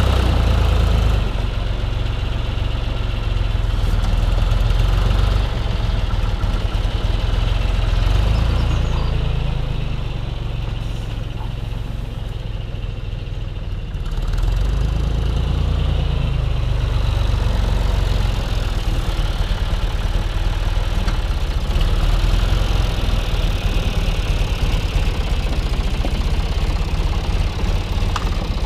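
Tractor diesel engine running steadily while pulling a plough. Its sound drops for a few seconds about ten seconds in, then comes back up.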